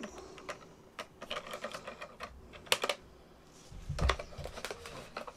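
Irregular light clicks, taps and rustling as hands handle a foam RC glider fuselage and its clear plastic canopy, with a dull low bump about four seconds in.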